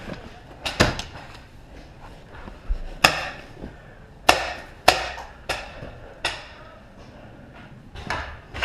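Paintball markers firing in an irregular string of sharp single shots, about eight, each with a short echo.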